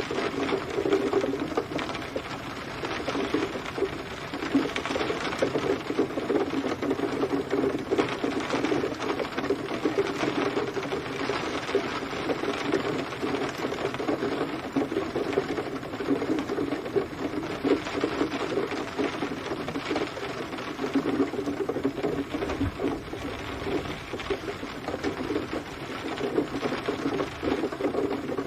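Steady rain, a dense, rapid run of drop hits over a constant hiss.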